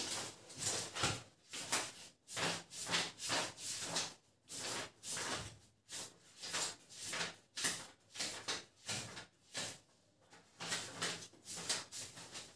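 Book pages being leafed through: a run of short rustling strokes, about two a second, with a brief pause about ten seconds in.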